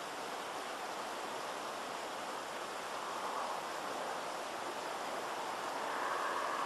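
Blackboxx yellow smoke flare burning with a steady hiss, swelling slightly near the end.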